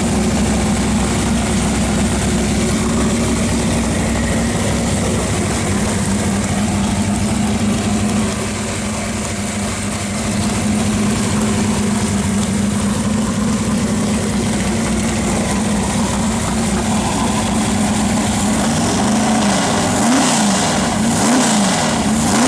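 1973 Corvette's big-block Chevy V8, with a wild cam and open exhaust, idling steadily. Near the end the throttle is blipped at the carburetor several times, the revs rising and falling.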